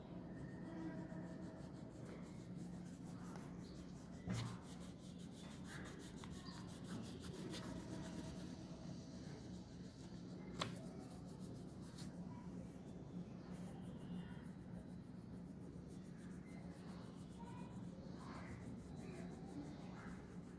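Crayon rubbed back and forth over paper, a faint scratchy colouring sound, over a steady low hum. A couple of sharp clicks come about four and ten seconds in.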